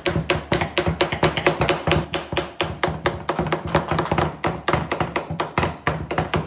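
Fast, even chopping with a kitchen knife on a wooden cutting board, about six strokes a second, with music playing underneath.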